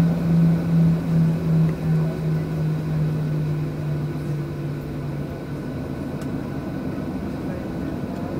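Cabin noise of a Boeing 737-700 taxiing, its CFM56-7 engines at low power, with a steady rumble underneath. A low hum throbs at first, then fades out about five seconds in.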